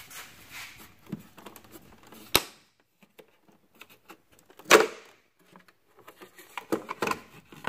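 Plastic fuse box cover beside the battery being unlatched and lifted off: a sharp click about two seconds in, a louder snap near five seconds, and small plastic clicks and scrapes between.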